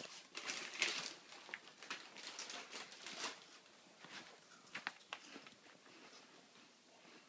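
Rustling and scratching of a fabric pop-up cat tunnel as a cat moves around inside it, in a run of irregular rustles over the first three seconds or so, then a few light taps.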